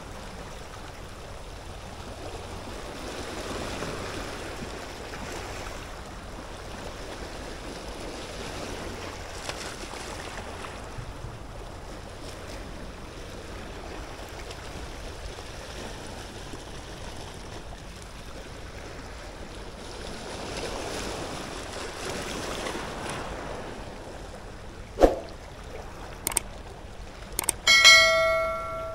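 Sea waves washing on the shore, swelling and easing a few times. Near the end come a few sharp clicks, then a short, bright bell-like ringing tone.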